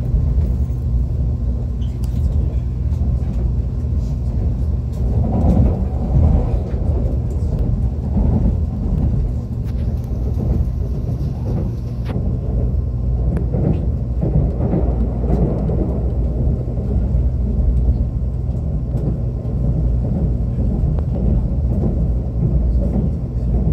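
Running noise of an ITX-Maeum electric multiple unit heard inside the passenger car: a steady low rumble with a hum, swelling at times. Scattered short clicks come from the wheels passing over the track.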